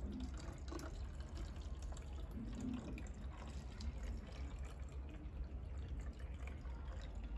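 Faint water trickling and dripping, with scattered small drips over a low steady hum.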